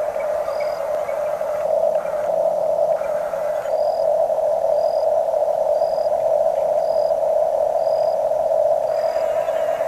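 Small electric motors and gearing of a Huina radio-controlled construction model running with a steady whine, its pitch and grind changing briefly around two to three seconds in. A short high electronic beep repeats about once a second, dropping out for a few seconds in the first half.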